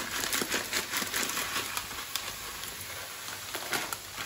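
Small dry grains poured from a plastic bag into a pan, a pattering hiss of grains landing.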